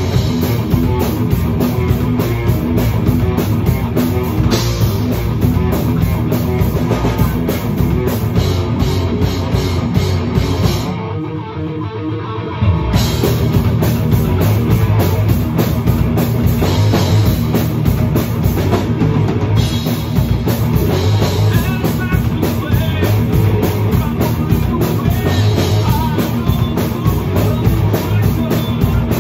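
Heavy metal music with fast, driving drum kit and electric guitar; it breaks off briefly about eleven seconds in and comes back in full.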